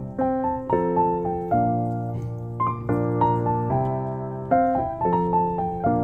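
Background piano music, gentle chords and a simple melody played at an even pace.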